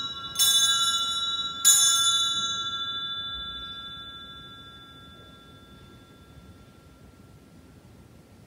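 Altar bell struck twice, about half a second and just under two seconds in, over the ringing of a strike just before. Each strike leaves clear, bright tones that fade slowly over several seconds. It is rung to mark the elevation of the host and chalice at the consecration of the Mass.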